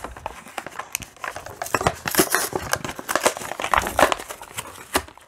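Plastic blister packaging crinkling and crackling in a run of irregular clicks as a Matchbox diecast fire truck is handled and taken out of its carded pack.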